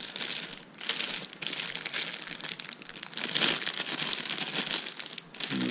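Small plastic bags of PC case accessories, screws and fittings, crinkling and rustling as they are handled.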